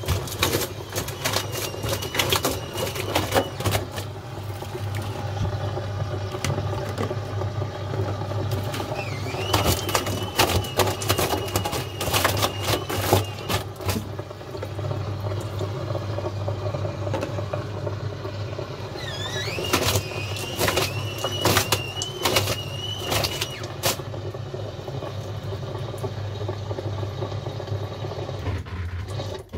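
Samsung front-loading washing machine in a suds-lock spin: a steady low hum runs under it, and the motor's high whine rises and then holds three times as the drum tries to speed up. Wet laundry knocks and clatters in the drum throughout. The hum stops shortly before the end.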